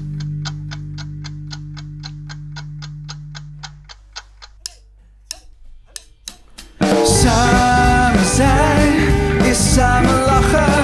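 Rock band break: held low bass and guitar notes ring out and fade under a steady ticking of about four or five a second. Then come a few scattered clicks in a near pause, and about seven seconds in the full band of drum kit, electric guitar and bass guitar comes back in loud.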